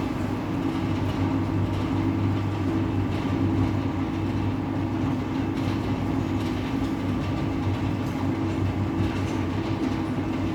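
Electric sliding-gate operator rated for a 2,600 kg load running steadily, its motor humming as it drives a heavy 6-metre gate rolling along its track.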